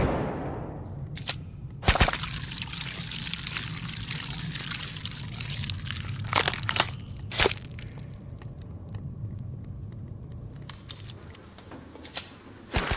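The tail of a sniper rifle shot dies away at the start, followed by a handful of separate sharp clicks and knocks spread over the following seconds, over a steady hiss and low hum.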